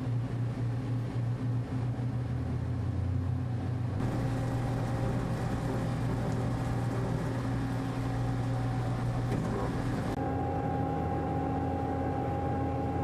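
Ship's engines running with a steady drone, with wind and water noise over it; the tone shifts abruptly about four seconds in and again near ten seconds.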